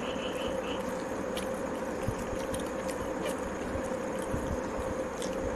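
Steady background hum holding one constant tone, with scattered small sharp clicks and soft low thumps. A few short high chirps sound near the start.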